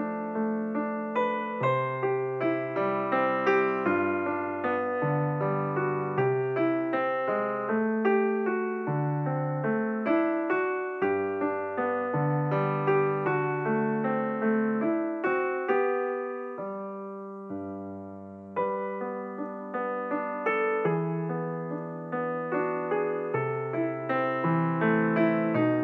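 Background piano music: a steady flow of gently struck notes, dipping quieter for a couple of seconds about two-thirds of the way through before picking up again.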